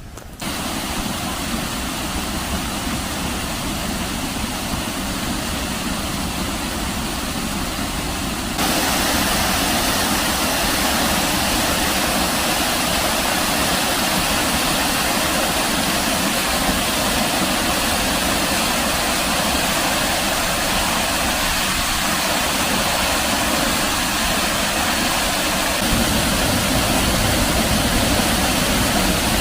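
Waterfall's rushing water, a steady, even roar of white water that jumps abruptly louder about eight seconds in.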